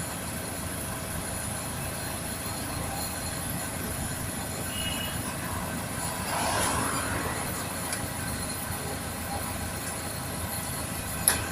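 Steady low rumble of heavy engines, with a louder passing swell about six seconds in and a sharp click near the end.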